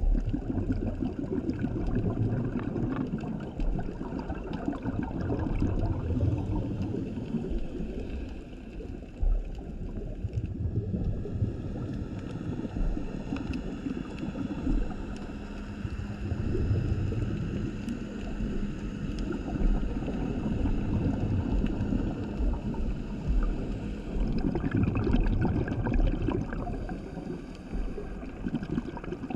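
Scuba regulator breathing underwater: exhaled air bubbles rumbling and gurgling past the camera in swells every few seconds.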